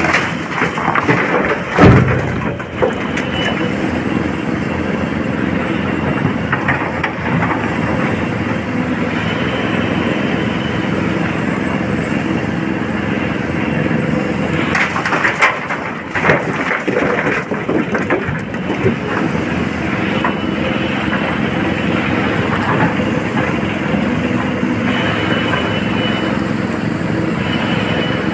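Heavy diesel machinery running steadily while an excavator bucket tips rock and earth into a steel dump-truck body, with a loud crash of rock landing about two seconds in and more clattering around fifteen seconds in.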